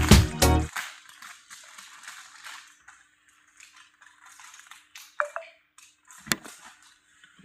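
Background music with a heavy beat cuts off suddenly under a second in. Then comes faint crinkling and rustling of plastic packaging being handled and opened, with two sharp clicks a little past five and six seconds in.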